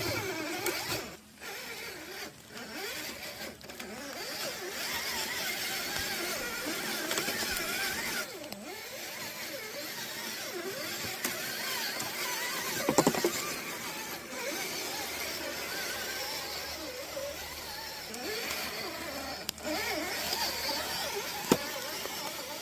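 Radio-controlled Traxxas TRX-4 crawler's electric motor and gears whining, the pitch rising and falling with the throttle, over a steady hiss of rain. A short, louder whine comes about halfway through, and a sharp click comes near the end.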